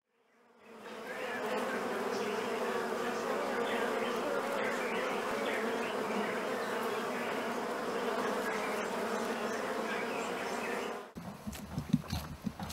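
Honeybees massed at a wooden hive entrance, buzzing as a dense, steady hum. The hum fades in over the first second and cuts off about eleven seconds in. A few irregular knocks and rustles follow near the end.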